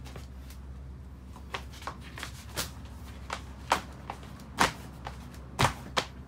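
Irregular sharp clicks and knocks, about nine of them and the loudest near the middle and end, from a newly assembled steel-frame flat weight bench as a person sits on it and shifts his weight on the pad.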